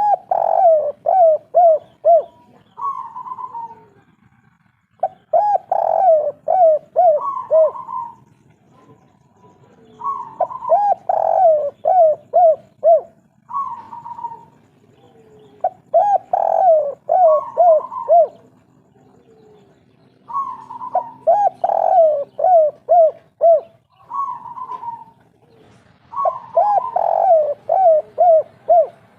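A spotted dove (derkuku) coos its 'kuk 3' song. It repeats the same phrase about every five seconds, six times. Each phrase is a run of quick cooing notes.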